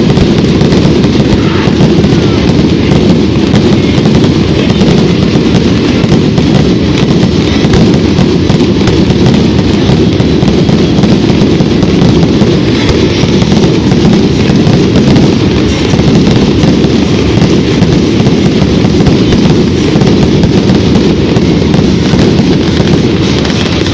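Fireworks display: a dense, unbroken barrage of booms and crackling bursts with no pause between them, very loud throughout.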